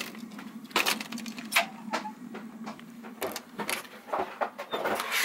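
Clicks, knocks and rattles of a travel trailer's door and someone stepping in and moving through the trailer, over a steady low hum that fades about three seconds in.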